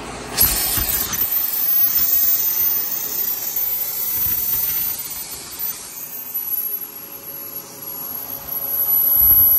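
A power tool working on the steel of a truck tailgate: a harsh, hissing noise that starts suddenly about half a second in, with a thin high whine above it.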